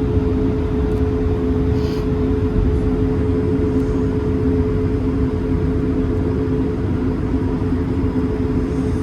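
Cabin noise of an Airbus A220-300 on the ground before takeoff: a steady low rumble from its Pratt & Whitney geared turbofan engines and airframe, with two steady hums and no spool-up.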